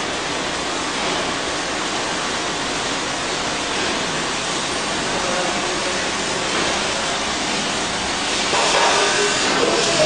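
Steady rushing and rattling of a running snack packing line: a Z-type bucket conveyor carrying loose chips up to a multihead weigher. It gets louder about three-quarters of the way through.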